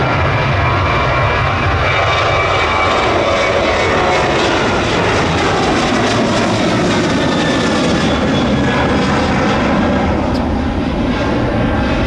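Jet airliner's engines running loud and steady as the plane goes by, a dense noise with no breaks.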